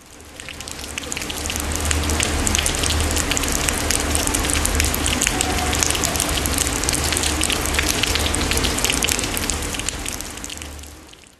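Dense spatter of falling water splashing onto a surface, like heavy rain, full of fine crackles. It fades in over the first couple of seconds and fades out near the end.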